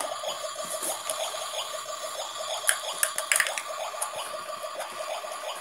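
Toy kitchen stove's electronic cooking sound effect: a steady, water-like hiss from its small speaker, with its burners switched on. A few sharp plastic clicks from a toy pot and lid sound around the middle.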